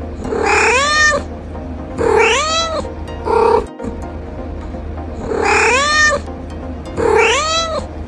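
A cat meowing loudly in long calls that rise and then fall in pitch. The same group of two long meows and one short one comes twice, over a steady low hum.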